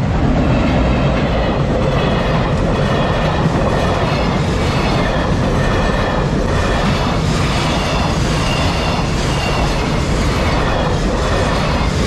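Freight train hauled by an EF210 electric locomotive passing close by, a loud, steady rumble of wagons with a regular clack of wheels over the rail joints about once a second.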